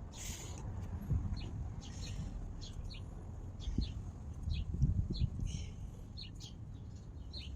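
Small birds chirping repeatedly, short high chirps about one or two a second, over low knocks and handling noise from hand-tool work on the handlebar.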